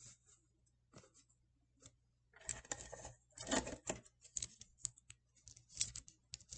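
Paper and cereal-box cardboard being handled and taped by hand: a few light clicks, then rustling and crinkling with sharp little clicks from about two seconds in, loudest a little past halfway.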